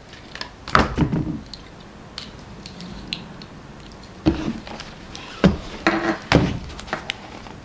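Handling noises close to a desk microphone as eyeglasses are taken from a hard case and put on: a scattering of clicks and knocks. Near the end, a book is picked up and opened.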